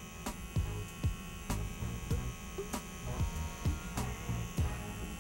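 Wahl Detailer T-blade trimmer buzzing steadily as it edges the back neckline. A low, quickly falling thump repeats roughly twice a second beneath it.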